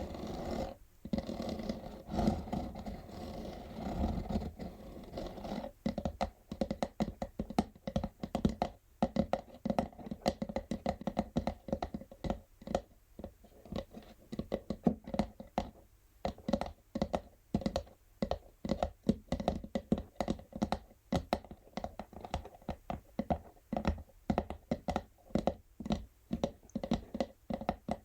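Natural fingernails scratching over an empty textured cardboard box for about the first six seconds, then tapping on it in quick, irregular taps, several a second.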